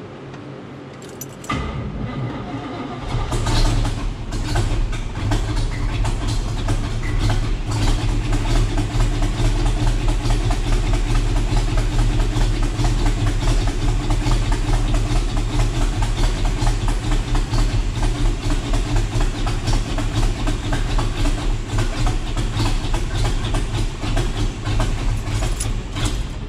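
Chevrolet El Camino engine on a newly installed, still-being-set-up Holley EFI system, cranked and catching a couple of seconds in, then running at a steady idle.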